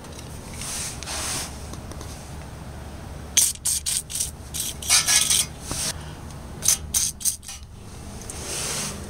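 WD-40 aerosol can spraying penetrating oil in a run of short hissing bursts, with one longer spray in the middle.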